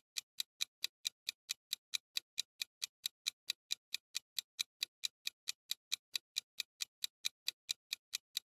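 Countdown-timer sound effect: a clock-like tick repeating evenly and quickly, about five ticks a second.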